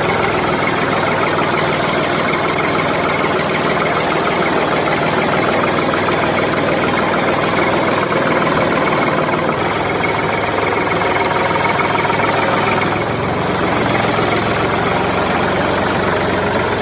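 A small motor running steadily with a dense mechanical rattle and a faint steady whine, its sound changing slightly about two-thirds of the way through.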